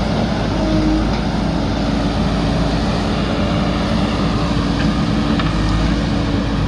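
Diesel engine of a JCB backhoe loader running steadily under work, a heavy low drone with no pauses.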